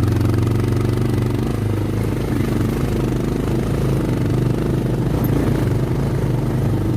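Single-cylinder motorcycle engine running at low speed, its note shifting a little after about a second and a half, with some clatter.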